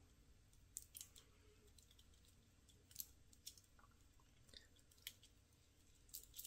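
Faint, scattered small clicks and light metal handling noises from a metal watch bracelet, its quick-release spring bar being worked into the watch's strap adapter.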